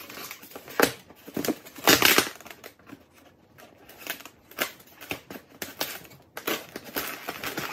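Duct tape on a styrofoam shipping cooler being picked at and worked loose by hand, then cut with a pocket knife: irregular scratching, crinkling and crunching, busier near the end.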